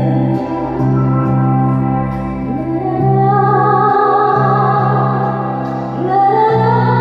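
Slow background music with long held notes over a steady bass line, and a wavering melody line that sounds sung.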